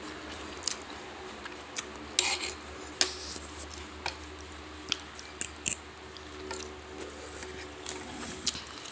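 Someone eating a crunchy snack: scattered crunching bites, the strongest about two and three seconds in, with light clicks of cutlery on a dish over a low steady hum.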